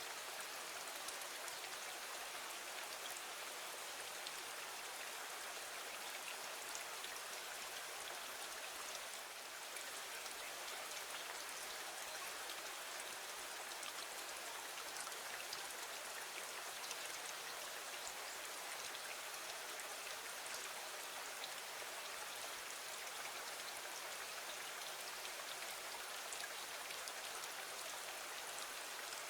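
Steady rain falling against a window: an even hiss with scattered light ticks of drops.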